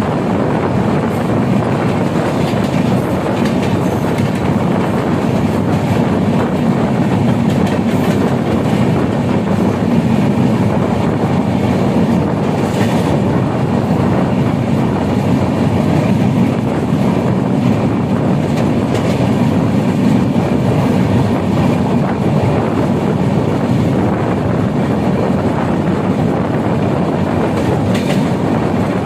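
Steady rumble and clatter of train wheels running on the rails, heard from the side of a moving passenger coach, with a few sharper clicks over rail joints.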